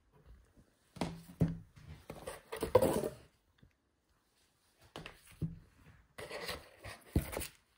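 Shrink-wrapped album packages being handled and shifted against each other and a cardboard box: bursts of plastic rustling and rubbing, with a few sharp knocks, the first about a second in and another near the end.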